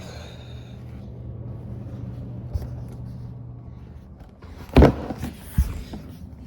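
A low steady hum, then a loud sharp knock about five seconds in, followed by a lighter knock just after.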